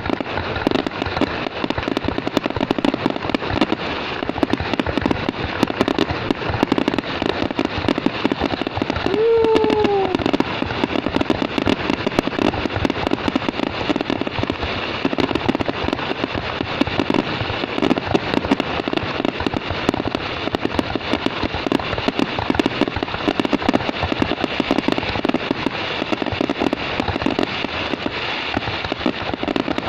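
Fireworks going off in a dense, continuous crackle of pops, with a brief falling tone about nine seconds in.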